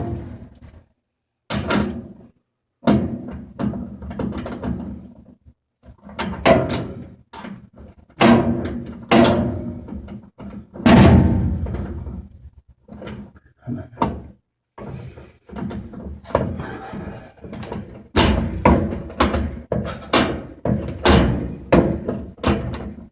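Hand ratchet driving home the bolt of a washer's idler pulley: a run of irregular clicks and knocks that come thicker near the end.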